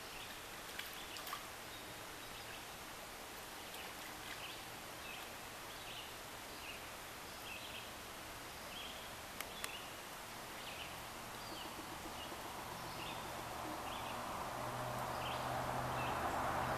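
Stream ambience: a steady rush of flowing water, with a small bird repeating a short high call about once a second and two sharp clicks about halfway through. The rushing noise grows louder over the last few seconds.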